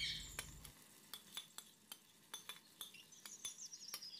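Marinated beef liver and masala frying in oil in a wok, with a faint crackle of small irregular pops.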